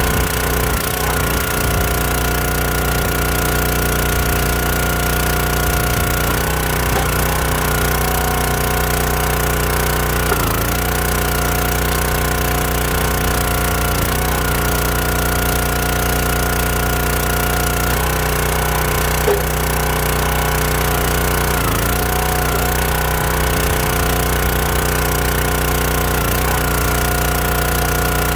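Countyline 25-ton log splitter's small gas engine running steadily at speed. Every four seconds or so its pitch dips briefly as the hydraulic pump takes load and the ram drives through a log.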